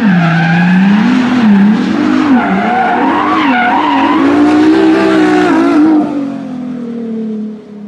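Intro sound effect of a sports car doing a burnout: the engine revs up and down with tyres squealing, then it fades about six seconds in to a quieter steady drone.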